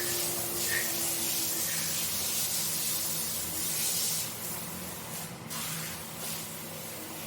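A scrubbing brush working through a wet, foamy carpet, making a steady wet hiss with a faint low hum underneath. About four seconds in it eases to separate strokes.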